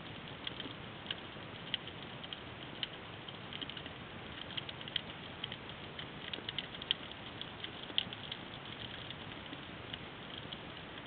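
Underwater ambience over a rocky reef: a steady hiss with a dense, irregular crackle of sharp clicks, heard through an underwater camera.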